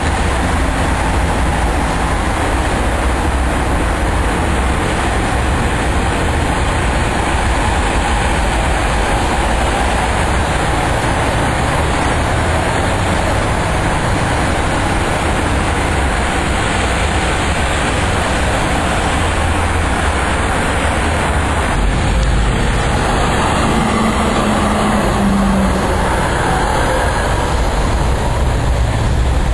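Steady running rumble of a moving electric transit vehicle.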